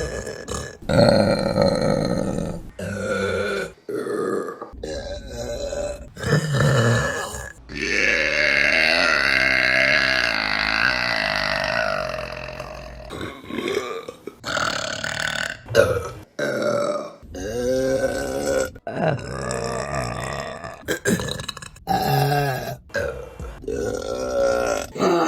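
Women burping in quick succession, a long run of mostly short, loud burps. About a third of the way in, one long drawn-out burp lasts around five seconds.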